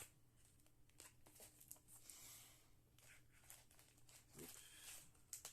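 Faint rustling, crinkling and small clicks of a package's wrapping being handled and opened.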